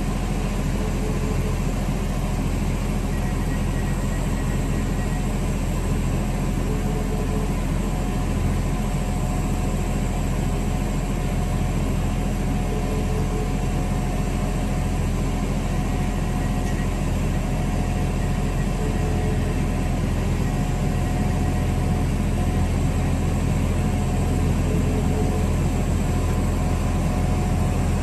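A diesel multiple unit's engine running at a steady idle: an even low hum that holds its level throughout, with a faint short tone every six seconds or so.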